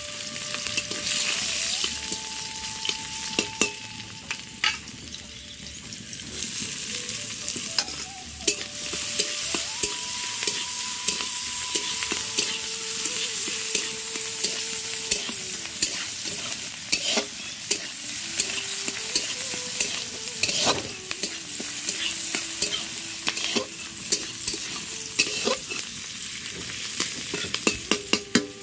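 Garlic, red chili and onion sizzling in hot oil in a black iron wok, with a metal spatula scraping and clicking against the pan as they are stirred.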